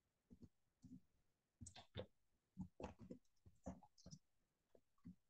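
Faint typing on a computer keyboard: an irregular run of quiet key clicks.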